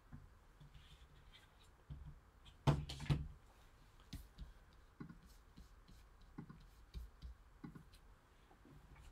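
Hard plastic card holders being handled and set down on a table: scattered faint clicks, with a louder double knock about three seconds in.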